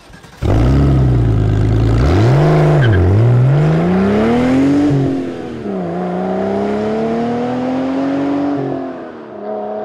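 Car engine revving and accelerating hard, starting suddenly. The pitch dips and climbs twice, drops about five and a half seconds in as at a gear change, then climbs again and settles near the end.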